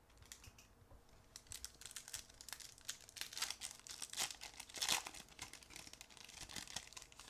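Foil wrapper of a Topps 2020 Baseball Update trading-card pack crinkling and tearing as it is opened by hand, in a run of irregular crackles, loudest about five seconds in.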